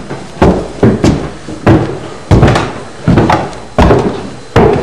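Heavy footsteps of people climbing stairs: a string of hollow thuds, roughly one every two-thirds of a second.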